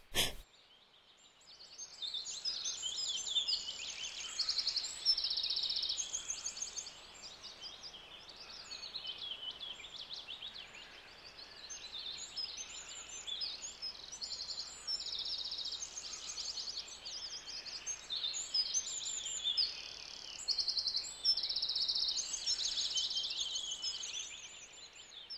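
Several songbirds chirping and trilling over one another, a busy chorus of short repeated trills and calls that sets in just after the start.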